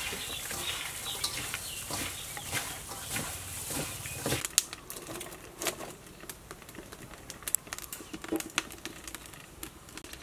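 Scattered light clicks, knocks and crackles as firewood is fed into a wood-fired clay stove.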